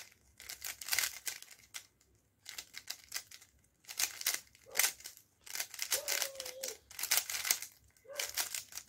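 Moyu Meilong 3C 3x3 speed cube being turned fast by hand: its plastic layers clack and click in quick runs with brief pauses, as its first turns are tried out and it is scrambled.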